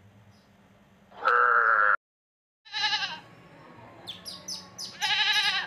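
Goats bleating: two wavering bleats, one about three seconds in and one near the end, with short high chirps between them. Before them, about a second in, comes a brief loud call, then a moment of silence.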